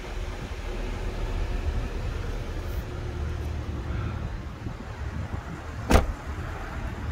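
A car door, the driver's door of a BMW X3 M40i, shutting with one sharp, loud thud about six seconds in, over a steady low rumble.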